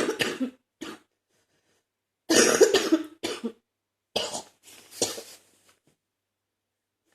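A woman coughing a wet, chesty cough in repeated fits, trying to clear phlegm from her chest. The fits come in short bursts with pauses between, the loudest a little over two seconds in.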